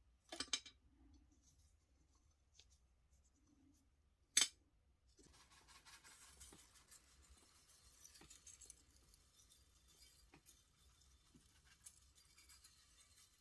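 Hand work on a small model car: two sharp clicks, about half a second in and about four and a half seconds in, then light, steady scratching with small ticks in it.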